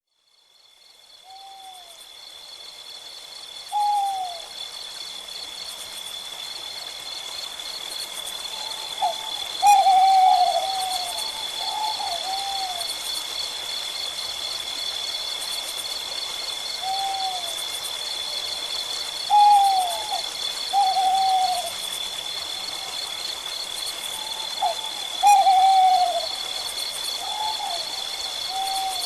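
An owl hooting: short notes that fall in pitch, some single and some in quick runs of two or three, every few seconds. A steady high-pitched drone runs beneath them. The whole fades in at the start.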